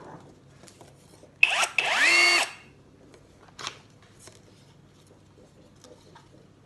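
Einhell TE-CI 18 Li BL 18 V brushless cordless impact driver triggered briefly: a short blip, then a second run whose whine rises in pitch and holds steady before it stops. A few light handling clicks follow.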